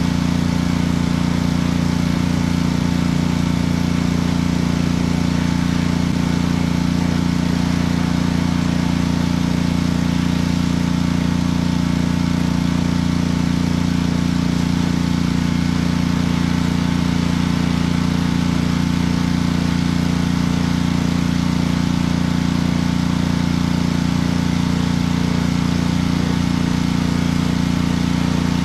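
An engine running steadily at an unchanging speed, a constant drone.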